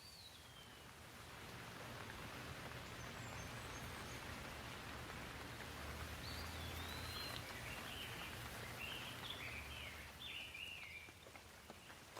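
Faint steady rain, with birds chirping over it: a short falling call at the start and a run of quick chirps in the second half.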